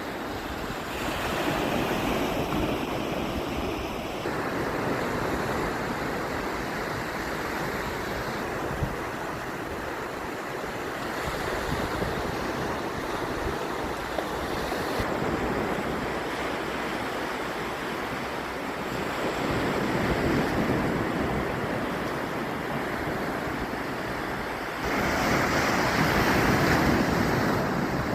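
Mediterranean surf: waves breaking and washing onto the beach in a steady rush that swells and eases every few seconds, louder near the end.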